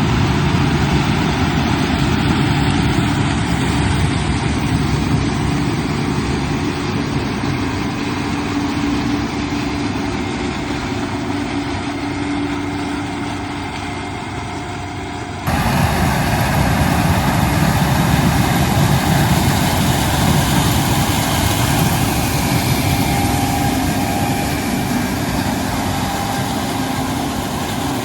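New Holland CR11 combine running steadily while harvesting corn: a loud, even engine and machinery drone with a few steady hums in it. The sound changes abruptly about halfway through, becoming brighter.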